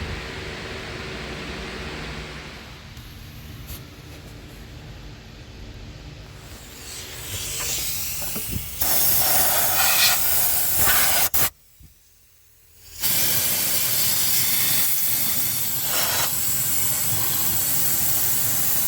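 Loud, steady rush of air that starts suddenly about nine seconds in, cuts out for about a second and a half, then runs again; before it, a quieter low hum.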